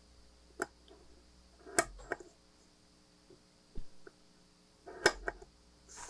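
Automatic center punch snapping twice, about three seconds apart, striking a small switch contact set on a maple block to swage it into a dome, with a few lighter clicks between.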